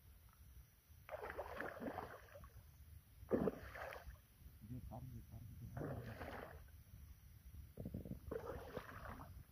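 Water splashing in four short bursts a couple of seconds apart, as a hooked carp thrashes at the surface while it is played in to the bank.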